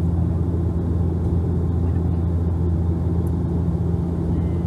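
Bombardier Dash 8 Q400 turboprop in flight, heard from inside the cabin: a steady low propeller and engine drone that holds one even pitch.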